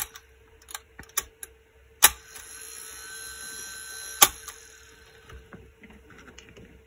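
Phonotrix 88 pocket reel-to-reel tape recorder being worked by its key controls: a series of sharp mechanical clicks, the loudest about two seconds in and just after four seconds. Between those two clicks the tape transport runs with a steady sound.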